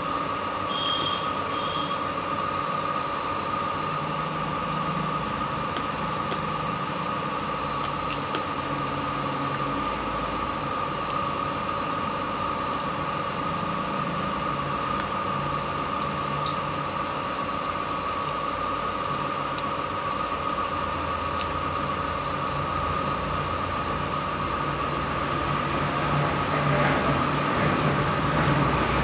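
Steady mechanical hum of a running motor, with a constant whine over it, growing a little louder near the end.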